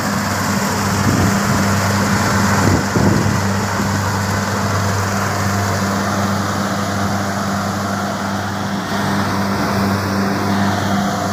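Rice combine harvester running steadily: a constant low engine hum under a broad mechanical noise.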